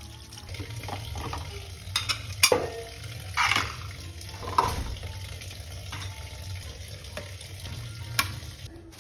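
Wet scrubbing and wiping while cleaning a refrigerator, with a few sharp knocks and clinks of handled parts and a louder scrape about three and a half seconds in.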